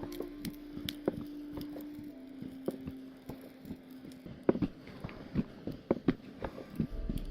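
Hand hammer striking a hot steel axe head on an anvil in a run of irregular blows, drawing out the beard of the axe. The blows grow heavier and more frequent about halfway through.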